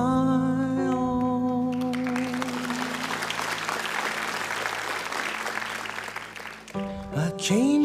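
Slow background music with long held notes; about two seconds in, the audience breaks into applause that lasts several seconds under low held tones, then the music comes back in near the end with notes that glide upward.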